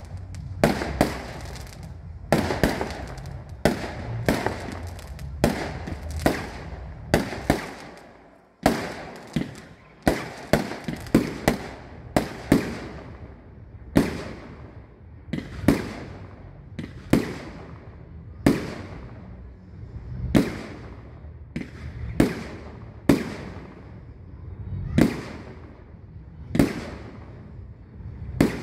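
Aerial fireworks shells bursting overhead in a long series of sharp bangs, each trailing off in an echo. The bangs come in quick, irregular clusters at first, then settle to about one every second and a half.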